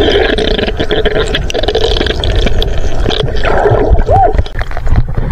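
Underwater sound picked up by a submerged camera: a continuous wash of water noise and bubbling, dotted with many sharp clicks and crackles, with a short squeak that rises and falls about four seconds in.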